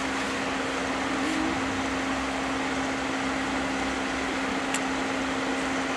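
Steady fan noise with a constant low hum, and one faint click about five seconds in.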